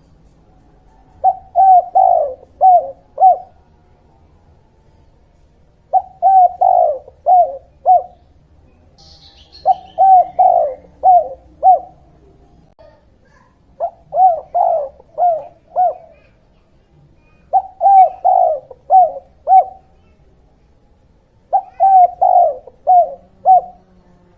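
Spotted dove (tekukur/derkuku) cooing: six repeated phrases, each a quick pair of coos followed by a few separate notes, one phrase about every four seconds.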